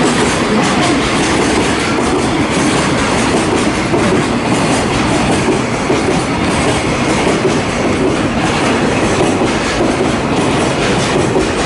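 A DD51-hauled container freight train passing at close range: the container wagons' wheels rolling on the rails in a loud, steady noise with repeated clicks.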